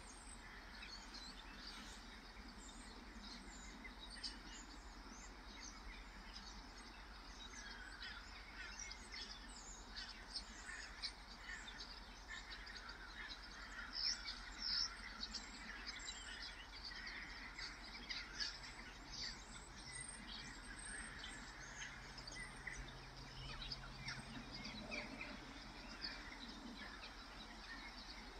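A flock of gulls calling, with many short calls scattered throughout over a faint, steady low background rumble.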